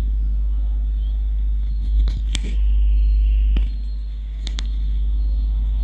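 Hands squishing and mashing fried eggplant on a steel plate, with a few sharp clicks, over a loud steady low hum.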